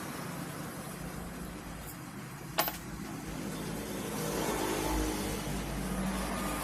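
A single sharp metallic click about two and a half seconds in, as the bolts holding the refrigerator compressor's motor stator are being undone, over a steady low background hum.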